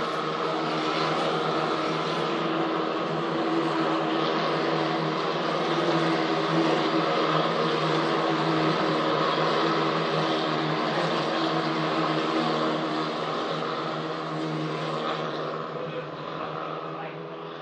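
A pack of Formula 4 race cars with 1.4-litre turbocharged Abarth four-cylinder engines running together past the circuit, their engines blending into one steady drone that fades near the end as the field moves away.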